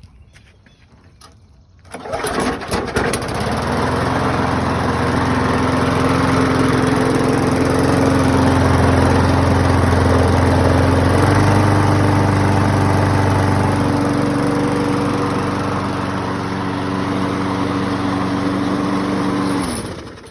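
Poulan push mower's 158cc Briggs & Stratton Classic single-cylinder engine pull-started, catching after about a second and a half and running steadily, its pitch stepping up slightly about halfway, then shutting off near the end. It runs after a carburettor cleaning and replacement of a wrong-sized intake o-ring that had kept it from starting.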